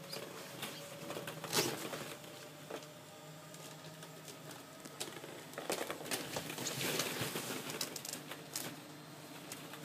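Hollow plastic ball-pit balls clicking and rattling against each other as a Shetland sheepdog puppy moves about among them, in irregular bursts, busiest about a second and a half in and again from about six to seven and a half seconds in.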